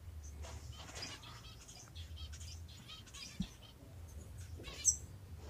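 Small aviary finches giving soft, scattered chirps, with one sharper, higher chirp near the end.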